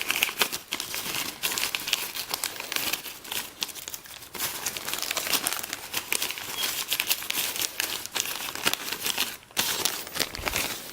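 Packaging crinkling and crackling as it is handled by hand, irregular and continuous.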